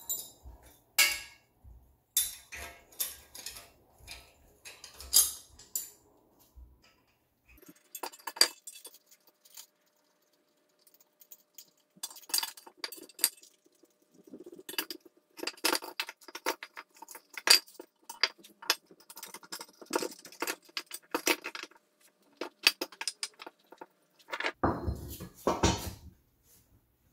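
Steel washers and nuts clinking and rattling as they are fitted onto a threaded rod, with wooden 2x4 blocks knocked and shifted against a trailing arm, setting up a homemade press for a polyurethane bushing. Sharp, irregular clinks come in clusters, with a longer scraping shuffle near the end.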